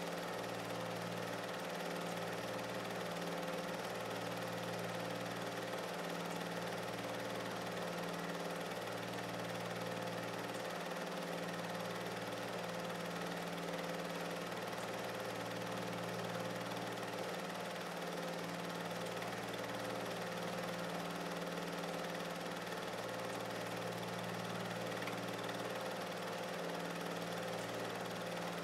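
Steady mechanical hum, as of a running motor, with a low tone that swells and fades every couple of seconds.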